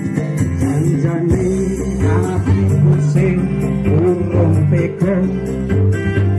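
Live band music from an electronic keyboard and kendang hand drums: a steady bass line under a wavering melody.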